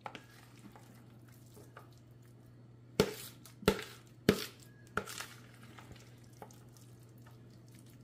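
Metal spoon scraping a thick potato-and-cheese mixture out of a plastic mixing bowl into a foil pan, with four sharp knocks of the spoon a few seconds in, roughly two-thirds of a second apart.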